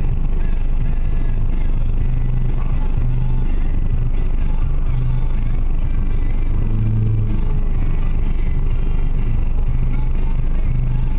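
Steady low rumble of road traffic and an idling car, heard from inside the car's cabin, with a low hum that swells and fades every second or two as vehicles pass close by.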